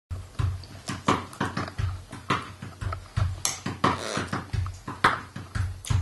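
Parrot feeding from a small bowl of seeds: sharp knocks and clicks against the bowl, unevenly paced at about two or three a second, each with a low thud.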